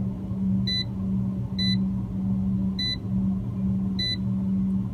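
A steady low electrical or mechanical hum, with a short high electronic beep repeating four times, about every second and a quarter.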